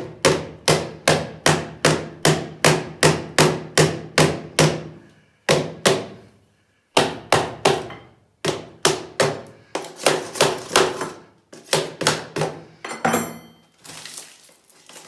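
A hammer striking repeatedly at about three blows a second, each blow ringing briefly, in runs broken by two short pauses, while breaking out concrete and old pipe in a cellar floor. The blows stop near the end, followed by a short scraping rattle.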